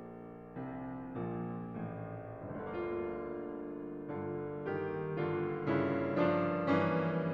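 Piano music: chords struck about every half second, each ringing on, growing louder and brighter toward the end.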